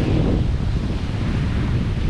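Wind buffeting the microphone over the rush of open-sea water around a sailboat under way.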